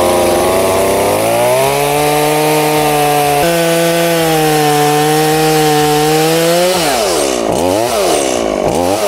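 Gas chainsaw with an assist-pull starter running at high speed while cutting into wood: the engine note climbs about a second in and holds steady. Near the end the revs drop and pick up again about three times.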